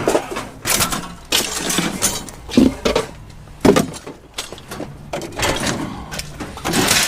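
Scrap metal junk being handled and dropped, with a run of irregular clanks and clatters, several of them sharp and loud.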